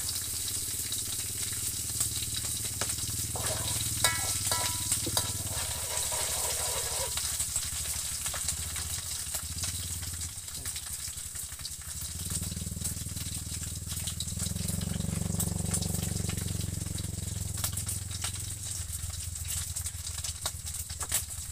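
Cooking oil sizzling and crackling in a wok over a gas stove, with many small pops throughout, over a steady low hum.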